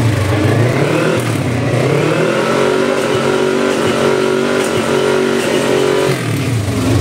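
Race motorcycle engines running at high revs out on the circuit, one engine note climbing about two seconds in, holding, then falling away near the end.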